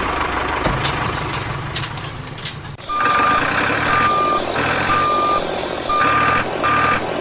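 Vehicle reversing alarm beeping about once a second, starting about three seconds in, over a motor running steadily.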